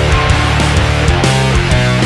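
Loud rock music with electric guitar over a steady beat.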